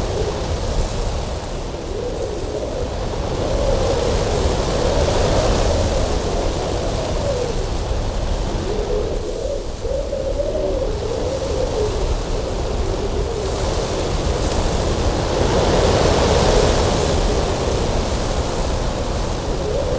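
Cold winter wind blowing hard and continuously, with a low howling whistle that wavers up and down in pitch, swelling in gusts about five seconds in and again past the middle.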